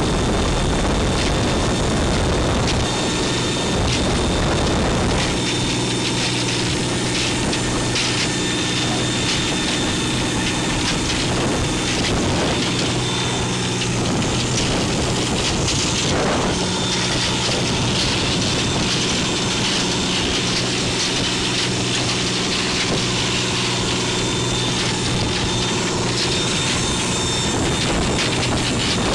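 A boat engine running steadily under a continuous rushing noise of wind and water.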